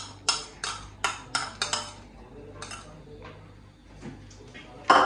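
A metal spoon clinking against the karahi as ghee is spooned into the oil: a quick run of sharp taps, about three a second, in the first two seconds, then a few scattered ones and one loud clank near the end.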